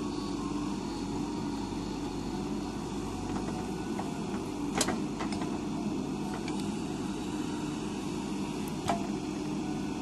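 JCB 3DX backhoe loader's diesel engine running steadily under load as the backhoe arm digs and swings, with two sharp metal clanks, about five seconds in and near the end.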